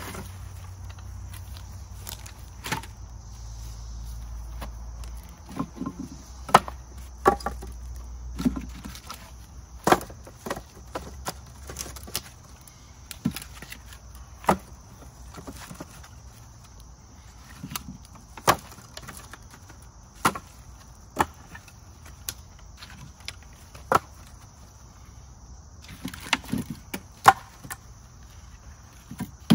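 Split firewood pieces knocking against each other and the wooden rack as they are laid in one at a time, in irregular sharp clunks a second or so apart, with a pause a few seconds before the end. A steady high insect trill carries underneath.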